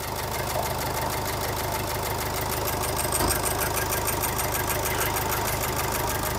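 Maruti Ciaz's 1.3-litre four-cylinder turbo-diesel engine idling steadily with an even diesel clatter, freshly rebuilt and running just after its first start.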